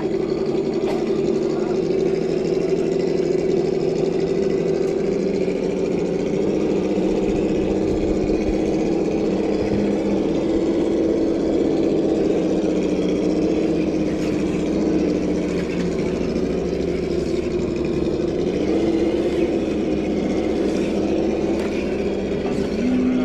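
Electric motor and gearbox of a Traxxas TRX-4 Defender radio-controlled scale crawler whining steadily as it climbs the wooden ramps, the pitch shifting a few times with the throttle.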